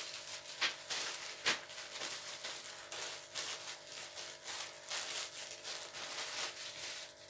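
Clear plastic bag crinkling and rustling as it is pulled off a garment and handled, a busy run of crackles with a few sharper ones, the loudest about one and a half seconds in; it stops near the end.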